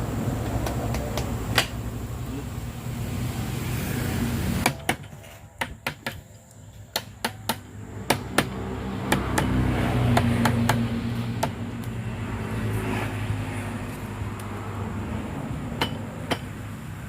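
Sharp metal clicks and taps from bulldozer transmission parts being handled and fitted, over a steady low machine hum. The hum drops away for a few seconds about a third of the way in, leaving the taps clearer, then comes back.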